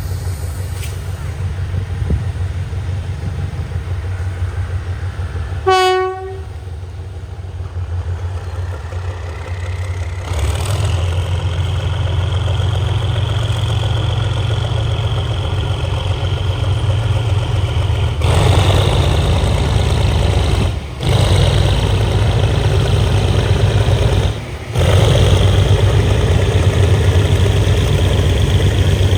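Train running with a steady low engine rumble, and a short horn blast about six seconds in. From about ten seconds a high whine rises and holds, and the whole sound grows louder from about eighteen seconds as the train comes on.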